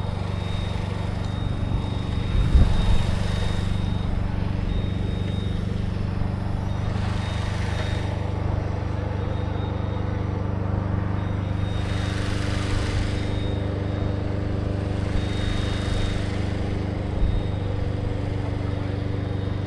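Engine of a tracked CMC 72HD aerial lift running steadily under load, with a thin high whine and several brief rushing swells every few seconds, while the lift pulls on a tree to lift it off a roof. A couple of low thumps are heard, one about two seconds in and one near the end.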